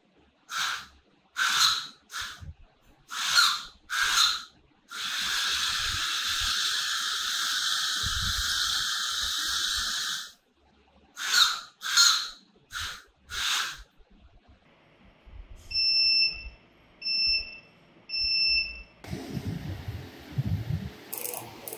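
Piezo buzzer used as a toy car's horn, sounding in a run of short beeps, then one long tone of about five seconds, then more short beeps. Three evenly spaced higher beeps follow, then rustling handling noise.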